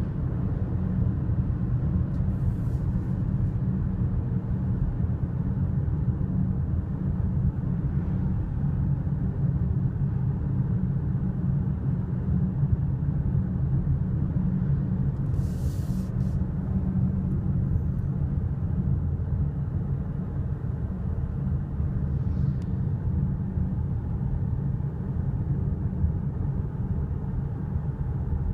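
Steady low road and engine rumble inside a moving car's cabin, with a brief hiss about halfway through.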